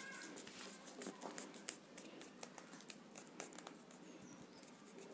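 Faint, irregular ticks and light rustling of thin paper strips being handled by hand.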